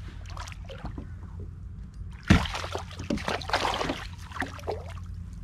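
Water splashing as a hooked flathead thrashes at the surface beside a kayak and is grabbed by hand. The splashing starts suddenly about two seconds in and lasts a couple of seconds.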